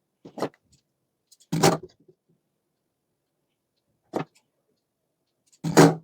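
Tailor's scissors cutting blouse fabric: four short separate snips, the second and the last the loudest.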